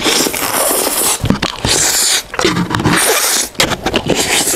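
Loud, hissing slurps of flat rice noodles (pad thai) being sucked into the mouth, several in a row with wet chewing between them.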